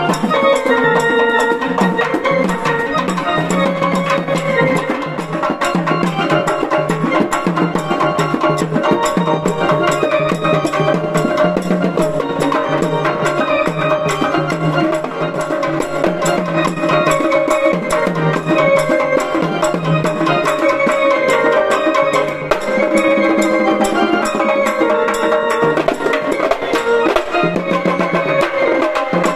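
Band music: fast, continuous drumming with a melody line over it.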